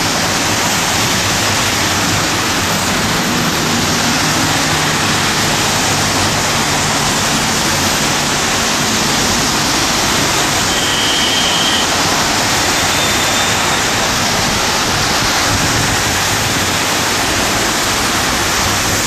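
Steady hiss of rain and tyres on a wet road. A vehicle engine's low hum sits underneath for a few seconds early on, and a brief high tone sounds about eleven seconds in.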